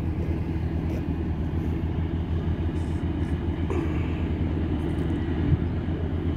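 Diesel engine of a side-boom pipelayer running steadily, a low even drone.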